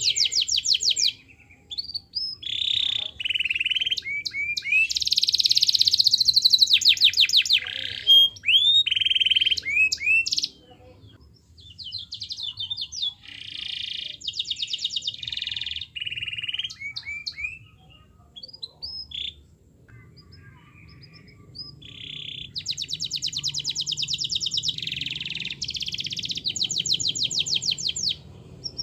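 Yellow domestic canary singing in long phrases of rapid trills and rolls, with short upward-sweeping notes between them, breaking off for a few seconds around the middle.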